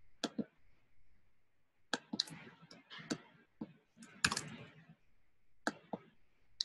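Quiet, irregular clicks of a computer keyboard and mouse, about a dozen short taps spread unevenly, some in quick pairs.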